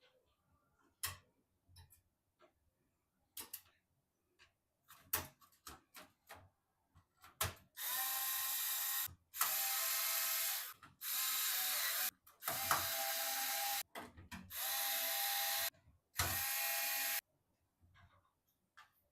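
Scattered clicks and taps of parts being handled, then a small electric screwdriver running in six bursts of about a second each, driving screws.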